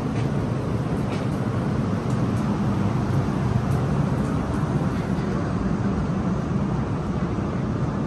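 Wind blowing across the microphone high up on an open observation deck: a steady, fairly loud low rumble with a few faint ticks near the start.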